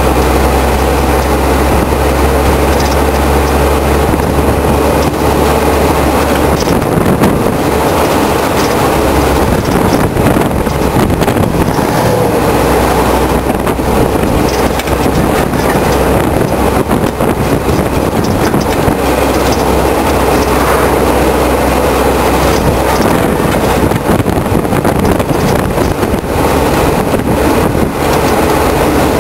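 Loud, steady road rumble with rattling and knocking from the trailer's drawbar and hitch, picked up by a microphone under the loaded trailer. A low drone from the towing BMW 525e E28's straight-six swells and fades a few times as it pulls the load.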